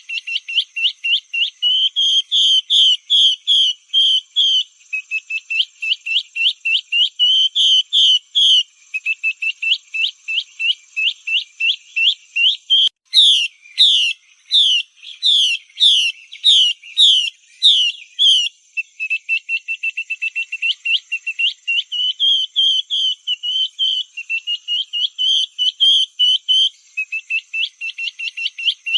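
Female Chinese hwamei calling: fast runs of short repeated notes, several a second. In the middle comes a stretch of slower, louder slurred whistles.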